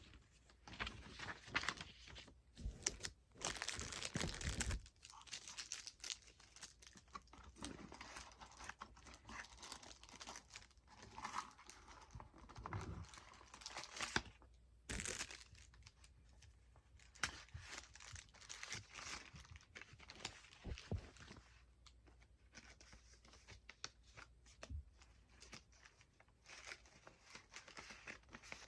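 Faint, intermittent rustling and crinkling as the paper directions and cards of an Uno game are handled and looked through.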